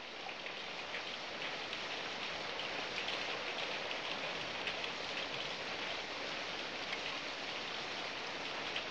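Steady rain falling: an even hiss peppered with many small drop ticks, growing a little louder over the first couple of seconds.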